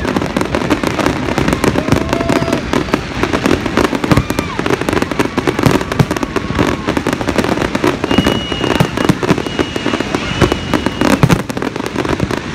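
Aerial fireworks display: a dense, continuous run of bangs and crackling shell bursts. A high steady whistle sounds for a few seconds about two-thirds of the way through.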